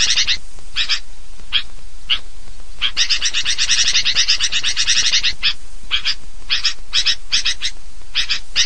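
Sooty-headed bulbul (kutilang) noisy chattering calls, played as a bird-lure recording. Dense runs of rapid notes come near the start and from about 3 to 5 seconds in, with short separate calls in between.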